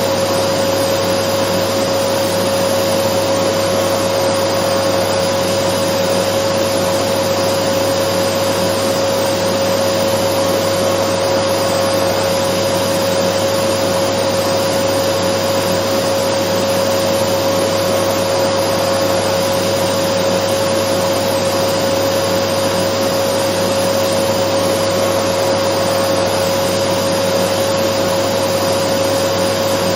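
Dyson vacuum cleaner running steadily: a constant whine over an even rush of air, never changing in speed or level.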